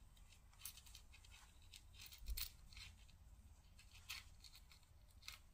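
Near silence: faint rustling and light ticks of cotton string and a beaded dangle being handled as a double knot is tied, with one slightly louder tick just after two seconds in.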